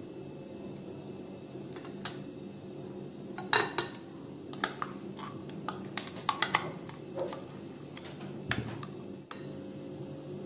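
Metal spoon scraping and clinking against a ceramic mug as thick palm pulp is scooped out into a bowl. A string of irregular clinks, the loudest about three and a half seconds in.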